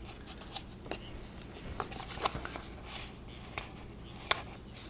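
Craft knife cutting angled notches into foamcore board: faint scratching with a few irregular sharp clicks.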